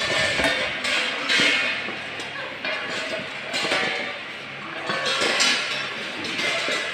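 Stainless steel plates clinking and clattering against one another as they are picked up and set down by hand, in a dense, irregular stream of metallic knocks.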